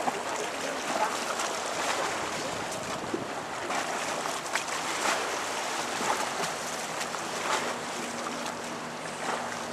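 Steady outdoor harbour noise of wind and water, with scattered short crackles. A low, steady engine hum comes in near the end.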